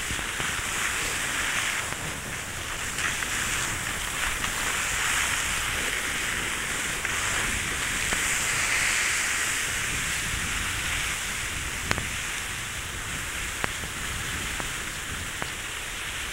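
Steady hiss of skis sliding over snow, swelling and easing slightly, with a couple of sharp clicks in the second half.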